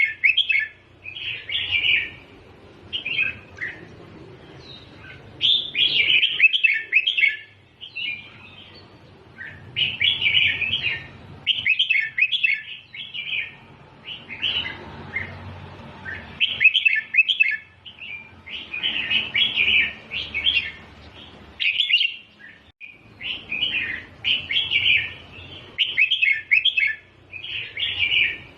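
Red-whiskered bulbul singing short, quick warbled phrases over and over, each about a second long with brief pauses between. This is the doubled-phrase song that keepers play to teach young bulbuls.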